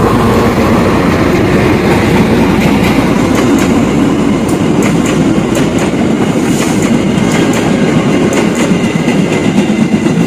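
Train running past close by: a loud, steady rumble of the cars with repeated clacks of the wheels over the rail joints.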